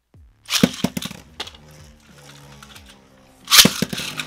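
Two Beyblade Burst spinning tops (Luinor L3 and Xcalius X3) launched into a plastic Beystadium about half a second in, spinning with a steady whir, then clashing hard with sharp plastic cracks near the end.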